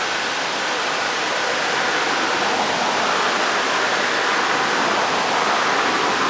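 Fast river water rushing and churning in whitewater below a boulder dam: a steady wash of noise that swells slightly over a few seconds.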